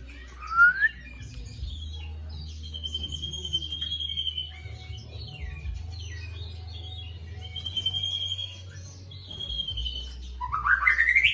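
White-rumped shama (murai batu) singing a varied song of whistles, chirps and trilled phrases, with a loud rising whistle about half a second in and a burst of rapid rising notes near the end. A steady low hum runs underneath.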